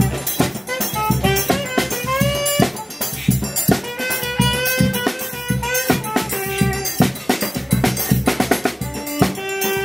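A live band playing: a saxophone leads the melody with sliding, bent notes over accordion, with a drum kit, cymbal and a strapped hand drum beating a steady rhythm.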